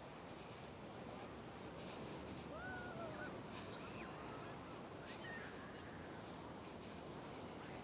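Steady wash of ocean surf breaking on a sandy beach, with a few faint, wavering distant calls around the middle.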